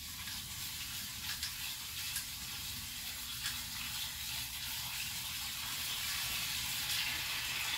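Water pouring steadily into a bucket of fermenting sour corn, a continuous hiss that grows slightly louder as it goes, with a few faint ticks.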